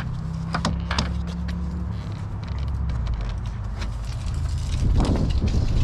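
Plastic trim clips of a truck door panel snapping loose under a pry tool: two sharp pops about a second in, then the panel scraping and rustling louder near the end, over a steady low rumble.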